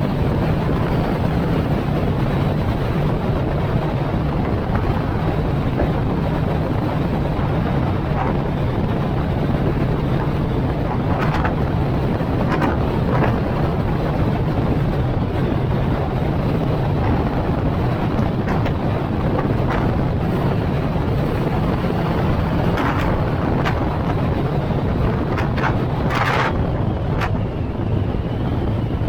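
Steady road and engine noise of a moving car, with wind buffeting the microphone. A few short knocks stand out, the clearest about 26 seconds in.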